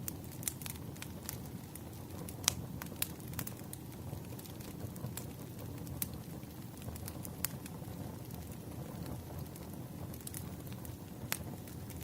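Wood fire burning: a steady low rumble of flames with irregular sharp crackles and pops. The loudest pops come about two and a half seconds in and again near the end.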